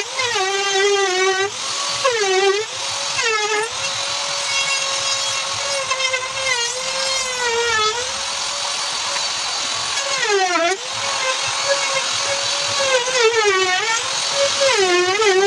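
Corded handheld power tool's electric motor whining steadily, its pitch sagging and recovering about seven times as it slows under load against the wooden bed frame.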